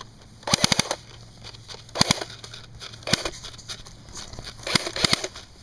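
Airsoft guns firing in short bursts of rapid shots: a quick string about half a second in, a couple of shots near two seconds, one or two around three seconds, and another rapid string near the end.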